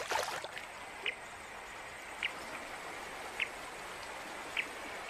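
Flowing river water, a steady rushing hiss, with a short high chirp repeating about once a second and a brief rush of noise at the very start.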